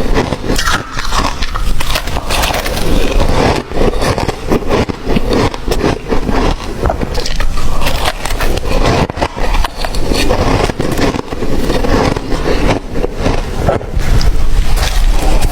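Close-miked crunching of ice being bitten and chewed, a dense run of irregular sharp cracks and grinding.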